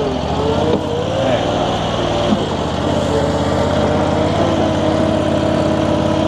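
Infront YF380 mini skid steer running while it works dirt, its pitch dipping and rising in the first second or so, then holding steady. A single knock comes about two seconds in.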